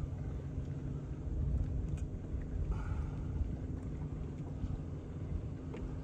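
Wind rumbling on the microphone, with a steady low hum underneath.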